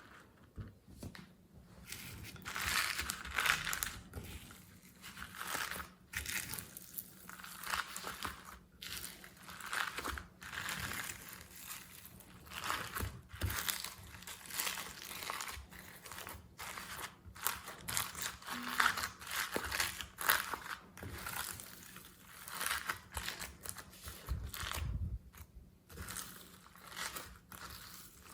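Hands kneading, squeezing and stretching glossy slime, in repeated noisy bursts every second or two.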